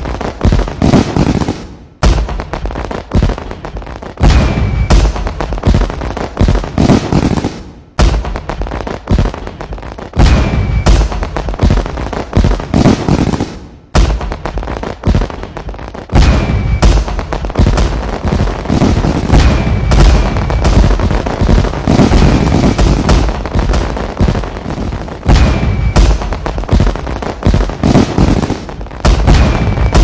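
Fireworks going off in a dense barrage of booming bangs and crackles, with brief breaks about every six seconds in the first half.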